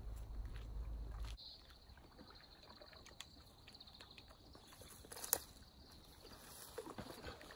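A low rumble on the phone's microphone for the first second or so, cutting off suddenly. Then quiet outdoor ambience with faint footsteps on a concrete seawall and scattered small clicks, one sharper click about five seconds in.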